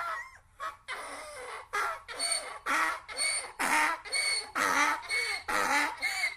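Donkey braying: after a brief lull, a steady run of short hee-haw calls, about two a second, alternating between a higher and a lower note.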